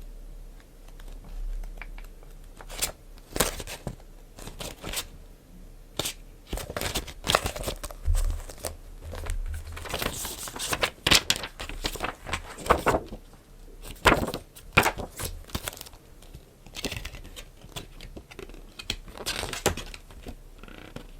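Packaging being handled and unwrapped by hand: irregular crinkling and tearing strokes mixed with light taps and clicks, busiest in the middle.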